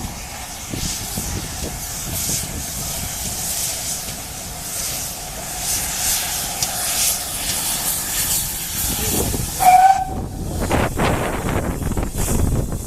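Steam locomotive hissing steam steadily, with a short whistle toot just before ten seconds in, followed by a few loud puffs.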